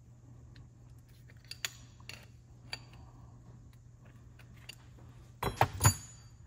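Faint metallic clicks of a 5/16 Whitworth spanner tightening the fuel-bowl nut on an SU H1 carburettor, then a louder metallic clatter near the end as the spanner and carburettor are handled and set down.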